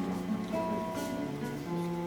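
Music: an instrumental passage of a song, with guitar playing sustained notes between sung lines.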